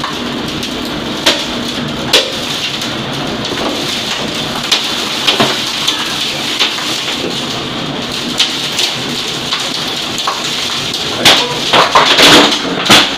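Tornado wind and rain rushing steadily, heard through a window from indoors, with sharp knocks of flying debris striking the glass and building now and then. The knocks come thick and loud near the end.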